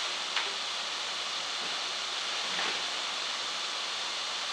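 Chopped vegetables sizzling in a frying pan: a steady, even hiss.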